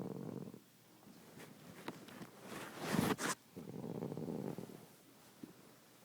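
Snoring: a rattling snore that stops about half a second in, then a noisy breath that builds to its loudest about three seconds in and cuts off. A second rattling snore follows, lasting about a second.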